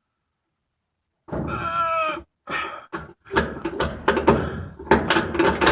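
Seized idler pulley of a Maytag Bravo electric dryer being forced by hand. About a second in comes a short squeak, then a rapid run of clunks and scrapes as the pulley is worked against its dead bearing, which has no bearings left and barely turns.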